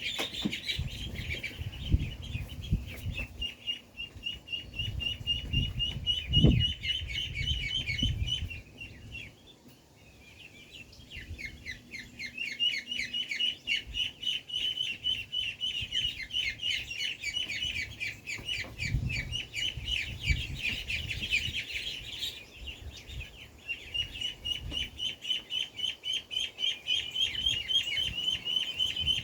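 A group of young ducks peeping in rapid, continuous chirps. The chirping falls briefly quiet about ten seconds in. Low thumps and rustling come through the first eight seconds and again near nineteen seconds.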